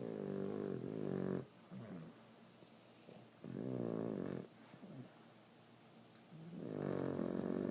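Boston Terrier snoring: three loud, pitched snores a few seconds apart, each about a second long, with soft breaths between them.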